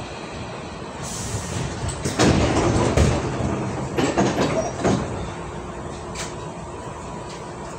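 Passenger doors of a Hankyu 8000 series train sliding open at a stop: a loud rush of air about two seconds in ending in a thud, followed by a few sharp clicks and knocks.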